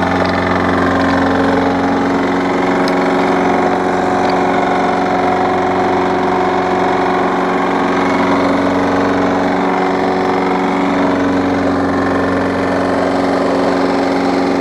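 Craftsman self-propelled push mower's small four-stroke engine running steadily at constant speed, just started after its carburetor was primed with the primer bulb.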